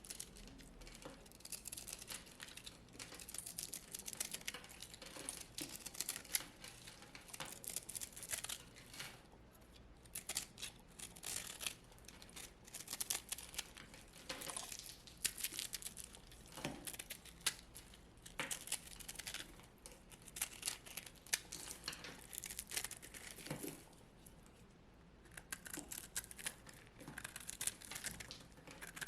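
Dry baked soap crackling and crumbling as it is cut or crushed by hand: dense runs of crisp crunches, with short pauses about nine and twenty-four seconds in.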